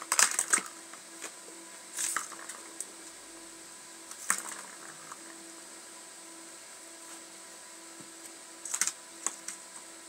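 Kittens batting at a plastic circular ball-track cat toy: the toy clatters and clicks in short bursts, four times, over a faint steady hum.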